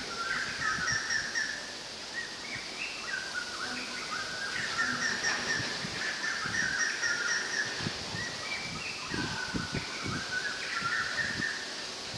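Several birds chirping in quick repeated phrases, with leaves rustling in gusts of wind that pick up in the second half.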